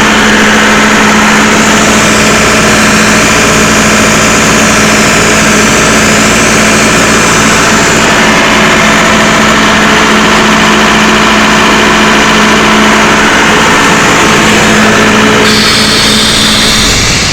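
Diesel engine of a Doosan 7/71 portable air compressor running at a steady speed with a constant low hum. Its sound changes near the end.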